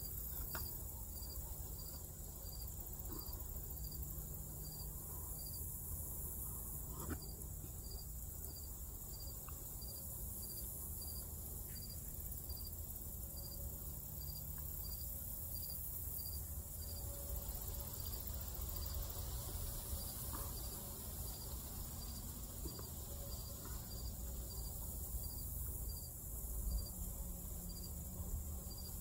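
An insect chirping in a steady rhythm, about one and a half short high chirps a second, over a steady high hiss and a low rumble.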